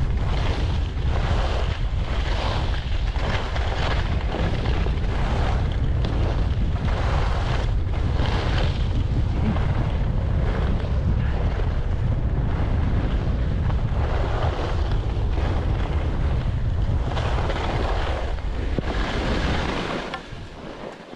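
Heavy wind rumble on the microphone from fast movement down a snowy track, with a hiss that swells and fades every second or so. The rumble dies away sharply near the end as the movement stops.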